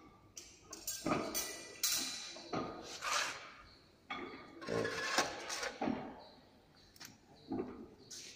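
Irregular metal knocks and clanks, roughly one a second, from handles and a loose bar being handled at a shaper machine whose motor is still off.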